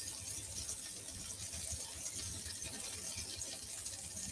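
Quiet room tone: a faint, steady low hum and hiss with no distinct sounds standing out.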